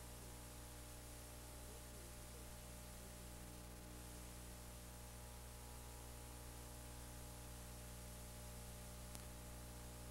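Near silence: a faint steady electrical hum under a soft hiss, with one faint click about nine seconds in.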